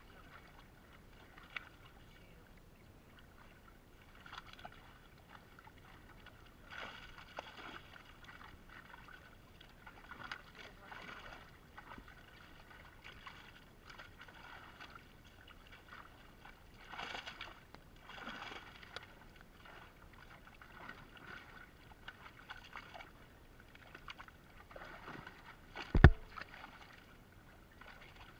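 Water splashing and sloshing in irregular bursts as fish thrash in a cast net being gathered by hand in shallow water. One sharp, loud thump near the end.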